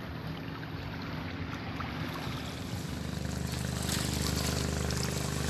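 A boat engine droning steadily over wind and surf noise, growing louder about three seconds in.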